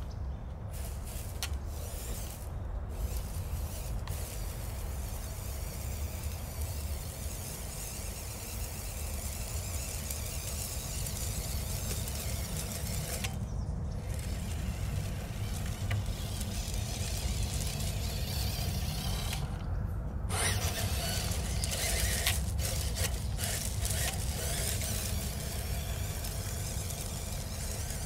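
A 1/12-scale RC Toyota FJ45 pickup crawling over loose river pebbles: its small electric motor and gears whine while the stones clatter and crunch under the tyres. It gets louder and busier about two-thirds of the way through, with short pauses here and there where the truck stops.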